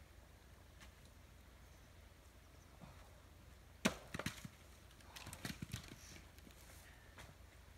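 A single sharp strike into a firewood round at the chopping block about four seconds in, followed by a few quick knocks. A little over a second later comes a short run of lighter knocks and clatter as split wood pieces knock together.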